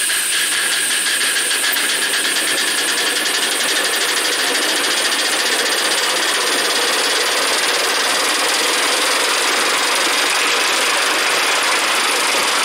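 Simplex 0-6-0 5-inch gauge live steam locomotive running under steam, a rapid chuffing exhaust beat over a steady steam hiss.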